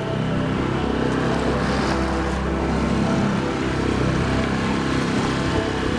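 A small sailboat underway: a steady low motor hum, with wind on the microphone and water rushing and splashing along the hull.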